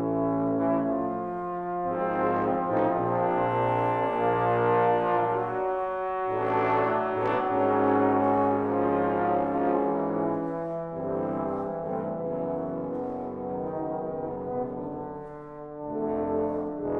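Trombone sextet of four tenor trombones, a bass trombone and a contrabass trombone playing slow, sustained chords that change every few seconds. The level drops briefly about fifteen seconds in before the next chord enters.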